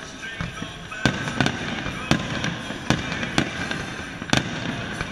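Aerial fireworks bursting overhead: about seven sharp bangs at uneven intervals, two close together near the end.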